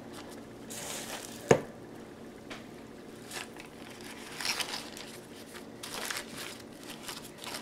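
Gloved hands pressing raw ground meat into a parchment-paper-lined loaf pan: quiet squishing of the meat and crinkling of the paper and vinyl gloves, with one sharp tap about one and a half seconds in.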